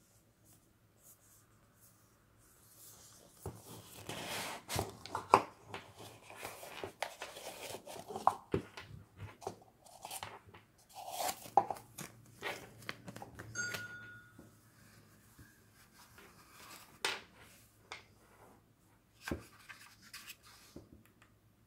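Unpacking a cardboard tube by hand: packaging rustling, with irregular light knocks and clicks as the cable, pouch and mod are taken out. It begins a few seconds in, after a near-silent start.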